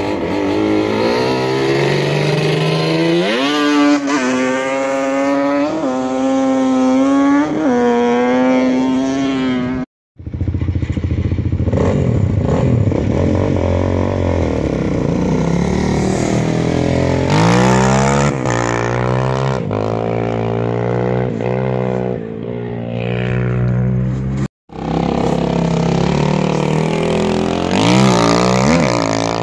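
Sport quad (ATV) engines revving and accelerating off the start of a dirt hill climb. The pitch climbs and steps back down several times as the riders shift through the gears. The sound breaks off abruptly twice, about ten seconds in and again near twenty-five seconds, and a fresh run starts after each break.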